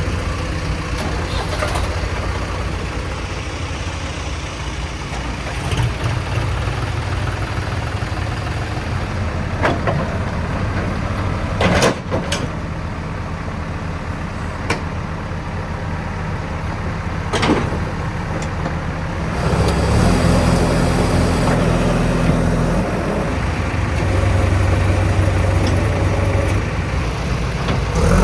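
Heavy diesel engine of a backhoe loader running at work, with several sharp knocks through the middle. It revs up and runs louder about twenty seconds in.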